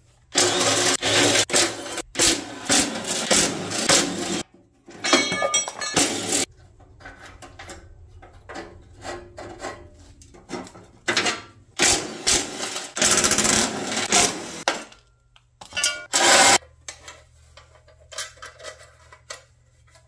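Cordless power driver run in several bursts of a few seconds, backing bolts out of a wood chipper's sheet-metal housing, with clinks of loose metal parts in between.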